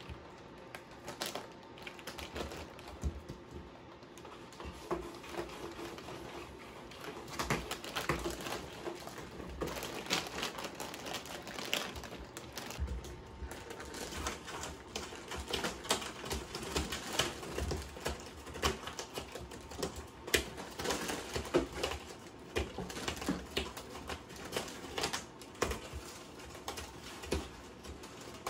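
Cats moving in cardboard boxes and over plastic bags of dry cat food: irregular taps, scratches and crinkles of paws and claws on cardboard and plastic.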